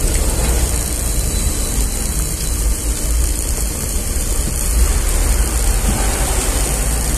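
Steady road and wind noise of a moving car heard from inside the cabin, a loud low rumble under an even hiss.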